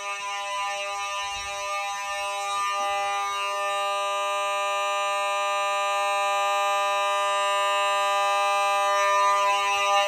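Fire alarm horns sounding continuously: a steady, unbroken buzzing horn tone, growing a little louder near the end. The system is in alarm after a Fire-Lite SD300 smoke detector was set off in a test.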